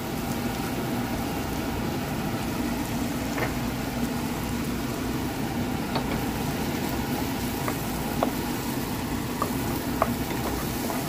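Diced vegetables sizzling in hot butter and fat in an enameled pot while flour is stirred in for a roux, with a wooden spoon tapping and scraping against the pot a few times. A steady low hum runs underneath.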